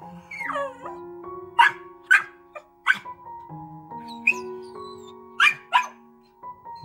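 A dog barking in short, sharp barks, about five in two groups, with a falling yelp near the start, over steady background music.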